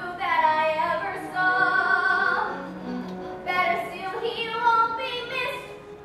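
A child singing a musical-theatre song with accompaniment, holding long notes, with a softer stretch about halfway through.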